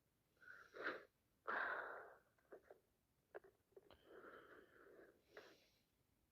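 A person with sinusitis sniffing and breathing hard through a congested nose: several short, noisy sniffs and breaths, the second the loudest, with a few small clicks in between.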